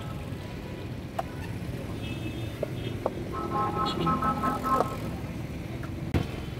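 Steady low rumble of street traffic, with a few sharp clicks of the spatula against the frying pan as the cream sauce is stirred. A faint pitched tone, like a distant horn, sounds for about a second and a half near the middle.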